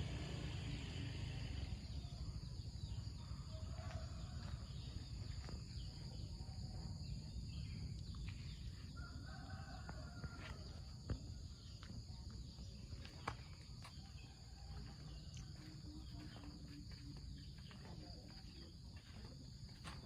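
Rural garden ambience: a steady high-pitched insect drone, a few short bird calls, and a low steady rumble underneath, with a couple of sharp clicks about halfway through.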